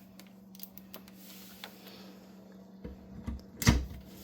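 Small scattered clicks and taps of screws and a drill being handled while driving caster mounting screws, over a faint steady hum, with a sharper knock near the end.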